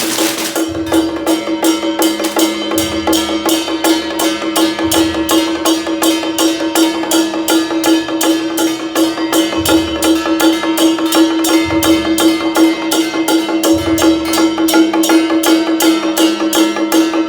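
Music with a fast, steady percussion beat of about three strokes a second over a held note, with a low bass part that comes and goes.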